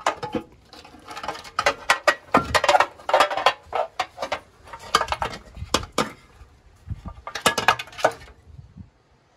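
Metal hand-tool clatter during top-end disassembly of a Holden 308 V8: quick runs of sharp clicks and clinks, as of a socket ratchet and bolts working on the rocker cover, thinning out near the end.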